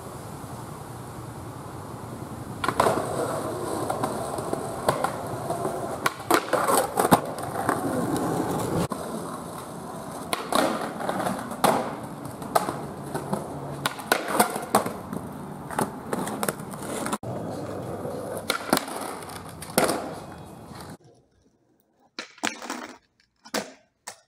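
Skateboard wheels rolling on a concrete sidewalk, a steady rumble broken by sharp clacks of the board's tail and wheels hitting the pavement. Near the end the rumble cuts off, leaving a few separate clacks.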